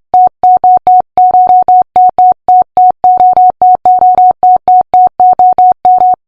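Synthesized digital beeping: short beeps all on one mid pitch, some spaced apart and some run together in quick groups, about four to five a second in an uneven pattern. The beeping stops just before the end.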